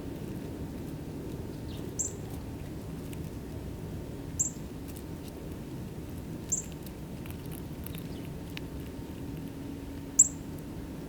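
Short, high, sharp bird chip notes, four of them spaced a couple of seconds apart, over a steady low background hum.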